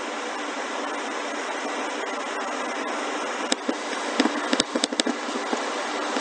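Steady, fan-like hiss of background noise, with a cluster of sharp clicks about three and a half to five seconds in.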